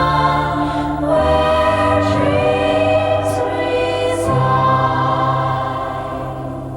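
AI-generated music: a choir-like chorus of voices holding sustained chords over a low bass note, the chord changing about a second in and again about four seconds in, easing off a little near the end.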